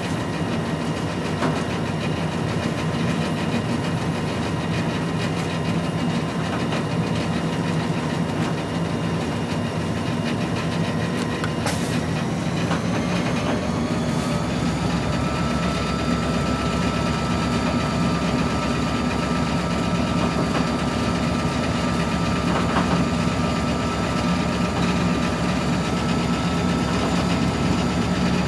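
Diesel locomotive engine running steadily, heard from inside the cab. About halfway through it speeds up, rising in pitch, and holds at the higher, slightly louder speed as the throttle is opened.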